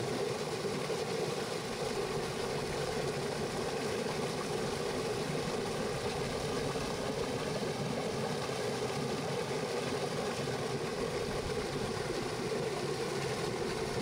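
River water rushing steadily over a small fall in the stream.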